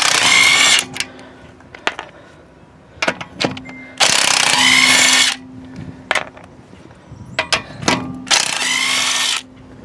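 Cordless impact wrench hammering on wheel lug nuts in three loud bursts of about a second each, near the start, about four seconds in and about eight seconds in, with scattered sharp clicks between.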